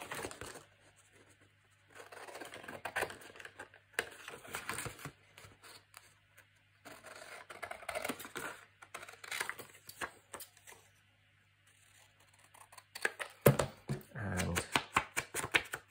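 Scissors cutting through printed card stock in several stretches of snipping with short pauses between, with the sheet rustling as it is turned; the cutting is densest and loudest near the end.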